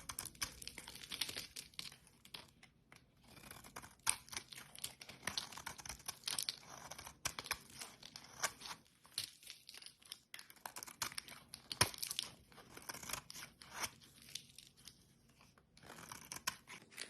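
A blade cutting through soap, with a continuous crisp crackling and crunching broken by many irregular sharp snaps.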